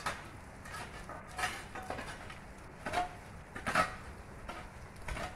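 Steady hiss of heavy rain, with a few irregular knocks and taps, the sharpest about three and four seconds in.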